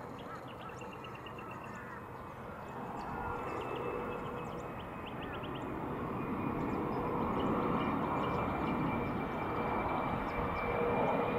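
Jet noise of an Alliance Airlines Fokker jet airliner's Rolls-Royce Tay turbofans on final approach, a rumbling roar with a steady whine growing louder as the aircraft nears. Birds chirp in quick runs during the first few seconds.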